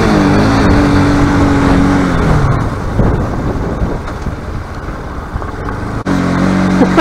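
Bajaj Pulsar RS200's single-cylinder engine heard from the rider's seat. Its note falls over the first two seconds as the bike slows, then mainly wind and road noise. After a sudden break about six seconds in, the engine runs at a steady speed.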